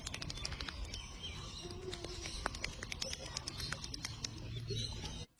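Birds: a short low call a little under two seconds in, over many sharp clicks and a steady noisy background.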